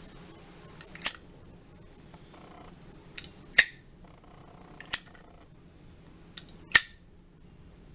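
Zippo Armor lighter's hinged lid being flipped open and snapped shut, four sharp metallic clicks a second or two apart, most of them quick double clicks; the last is the loudest.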